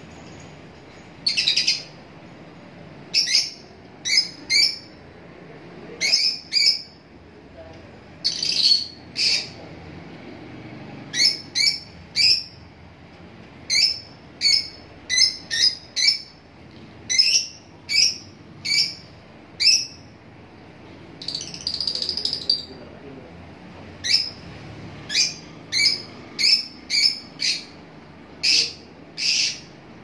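Caged lutino peach-faced lovebirds calling: short, sharp, high-pitched chirps repeated at irregular intervals, roughly one a second, with one longer, drawn-out call a little past the middle.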